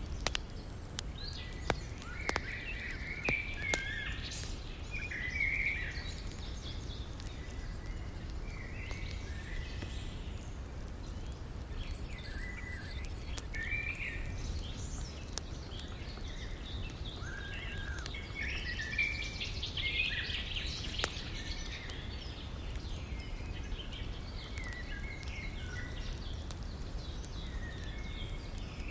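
Campfire crackling with occasional sharp pops over a steady low rush of river water, while small birds chirp on and off.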